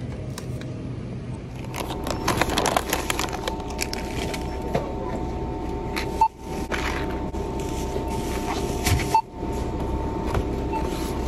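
Steady store background hum with crackling and scraping as packaged groceries are handled. The sound cuts out abruptly twice.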